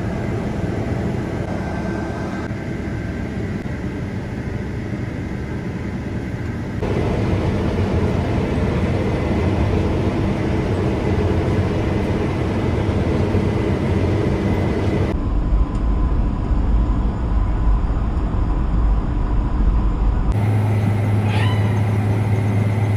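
Combine harvester running steadily while harvesting rice, with a dense engine and machinery drone. The sound changes abruptly several times, getting louder about 7 s in and deepening to a strong low hum between about 15 and 20 s.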